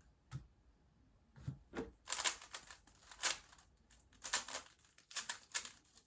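Speed cube, a GAN 356 M magnetic 3x3, being turned by hand: quick, irregular clacking of its layers, in short runs of turns with brief pauses between.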